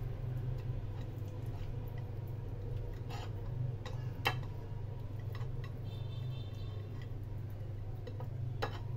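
Raw rui fish steaks being rubbed with turmeric and salt by hand on a ceramic plate: a few light, irregular clicks as fingers and fish tap the plate, the loudest a little past four seconds in, over a steady low hum.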